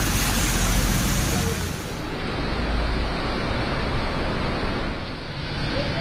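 A bus passing on a rain-soaked road, its tyres hissing through the water over a low engine rumble. About two seconds in the sound changes abruptly to a steadier rush of rain and wind.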